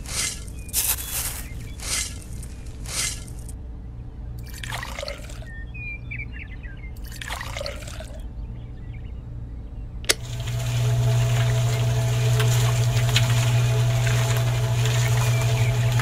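Scoops of dry sand and cement tipped into a miniature concrete mixer's drum, then water poured in twice. Just after ten seconds a click, and the mixer's small electric motor starts turning the drum with a steady hum.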